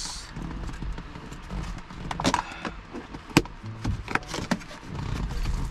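Handling noise of a plastic lunch box being closed and packed into a fabric lunch bag: rustling with several sharp plastic clicks and knocks, the loudest about three and a half seconds in.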